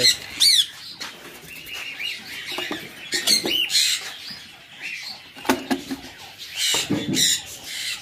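Cockatiels calling in the aviary: short, high chirping whistles that sweep up and down, coming in a few separate bouts, with a couple of sharp clicks from the cage or nest box being handled.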